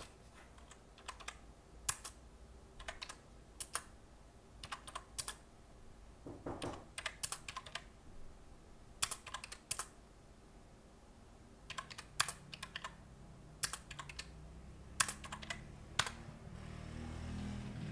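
Keys being tapped in short irregular runs, as figures are entered to work out a sum. From about twelve seconds in, the low hum of distant dirt bike engines rises underneath.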